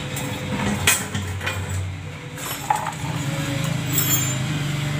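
Yamaha Byson FI fuel tank knocking and scraping as it is handled and set down on a tiled floor, with a couple of sharp clicks, over a steady low hum.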